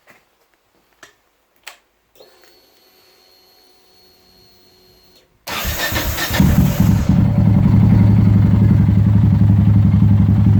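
A few faint clicks and a faint steady whine. About five and a half seconds in, the starter cranks and the Yamaha XT660X's single-cylinder four-stroke engine catches, then settles into a steady idle.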